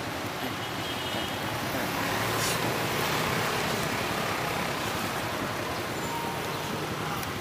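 Street traffic: a steady wash of passing motor vehicles that swells briefly about two to three seconds in as one goes by.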